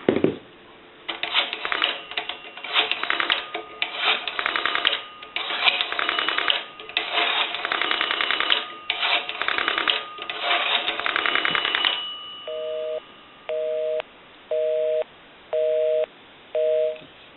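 Northern Electric 3-slot payphone dialing out a number in runs of rapid clicks, one run per digit, for about eleven seconds. A busy signal follows: five evenly spaced two-tone beeps about half a second long, the called line being engaged.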